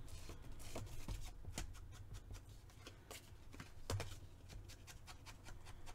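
Light, irregular tapping and paper handling as the edges of a paper cut-out are inked, with a sharper tap about four seconds in.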